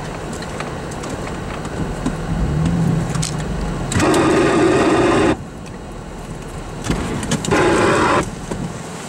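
Car engine and road noise heard from inside the cabin, with two loud, sudden blasts of rushing noise that start and stop abruptly, the first about four seconds in and lasting over a second, the second shorter, near the end.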